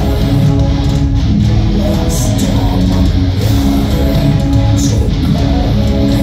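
Live metal band playing loud and dense: distorted electric guitars, bass guitar, drums and keyboards, picked up from within the concert crowd.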